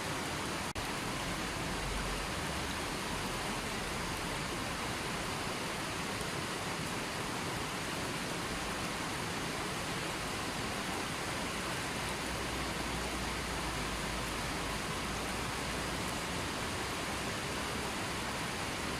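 River water flowing, a steady, even rush. There is a momentary dip in level just under a second in.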